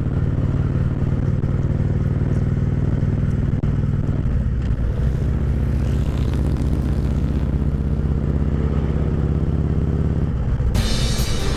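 Touring motorcycle's engine running steadily at road speed, heard from the rider's seat; its note shifts slightly about four seconds in.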